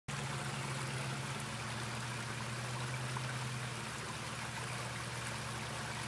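Water running and trickling over rock in a small waterfall, with a low steady hum underneath that grows fainter about halfway through.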